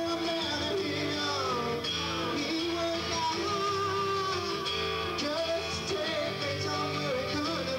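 Live solo song: a man singing a wavering melody over his own strummed guitar, recorded from the audience on a camera's built-in microphone.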